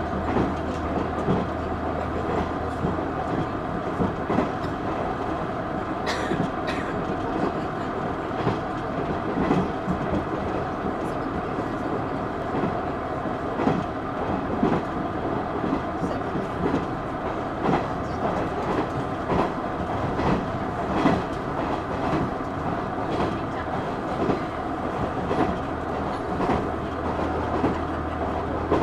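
Inside a moving KiHa 110 series diesel railcar: steady running rumble of the wheels and underfloor diesel engine, with the regular clickety-clack of wheels over rail joints. A low engine drone drops away about three seconds in and comes back near the end.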